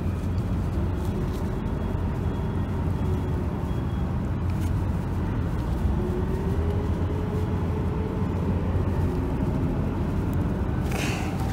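Steady low rumble of road traffic, with a faint engine tone that rises and falls a little past the middle.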